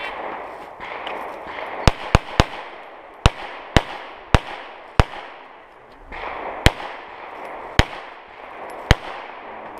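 A semi-automatic pistol fired about ten times during a timed course of fire: three shots in quick succession about two seconds in, then single shots half a second to a second and a half apart.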